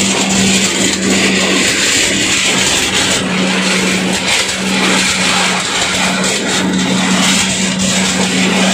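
Areca nut husking machine running, driven by a stationary diesel engine: a steady engine drone with a dense clatter of dry husks being beaten and thrown out through the machine.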